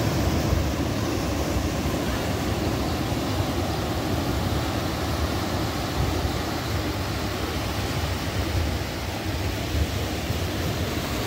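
Steady rush of small waves breaking on a sandy shore, mixed with wind on the microphone.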